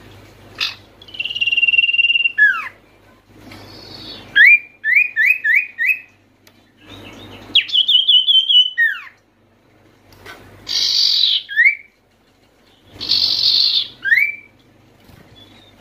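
Common iora (sirtu/cipoh) singing a run of whistled phrases. First a long held whistle that drops away at its end, then four quick rising whistles, then a trilled phrase ending in a falling slur. Near the end come two harsher, buzzy calls, each followed by a short rising whistle.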